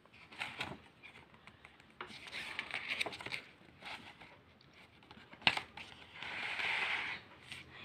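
Pages of a picture book being turned and handled: a soft paper rustle about two seconds in, a sharp click a little after halfway, and another brushing rustle near the end.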